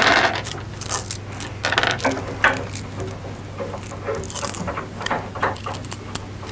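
Irregular short knocks, clicks and light scrapes as someone climbs a metal stepladder and handles things at the top of a wooden cabinet.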